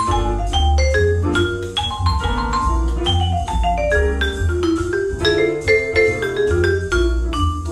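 Vibraphone played with four DG20 Bitonal mallets: a quick flowing line of struck, ringing metal-bar notes and chords, several notes a second. A low bass line runs underneath.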